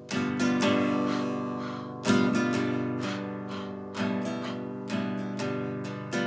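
Acoustic guitar strummed in a steady rhythm, with a fresh chord about every two seconds.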